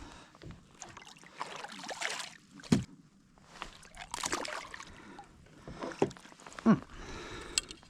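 Handling noises on a fishing kayak: irregular rustling scrapes and short knocks, with two louder thumps, about three seconds in and again near the end.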